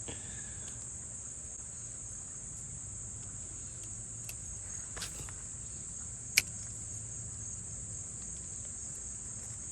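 Steady, high-pitched, unbroken buzz of an insect chorus, with one sharp click about six and a half seconds in.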